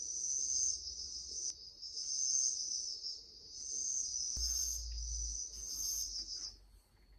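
Recorded chorus of early-autumn crickets, among them a bell-cricket-like trill, chirring high and dense and swelling and easing every second or two. Near the end the chorus fades out, leaving one thin steady tone.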